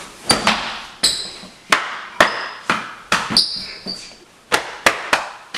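A series of sharp knocks or strikes, about a dozen at uneven intervals, several with a brief high ringing after them.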